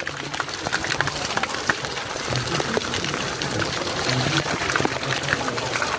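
Water running and pouring steadily, with many small splashes and drips.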